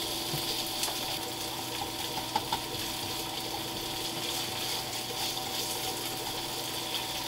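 Pieces of ham and bacon sizzling steadily in olive oil in a frying pan as they are stirred with wooden chopsticks, with a couple of light taps about two and a half seconds in and a faint steady hum underneath.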